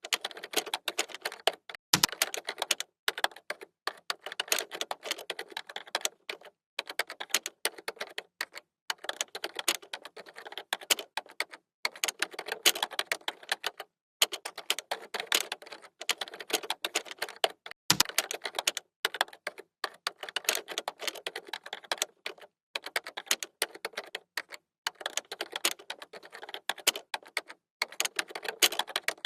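Typing on a computer keyboard: a fast, continuous stream of key clicks broken by brief pauses, with two heavier key strikes that carry a low thud, about two seconds in and again some sixteen seconds later.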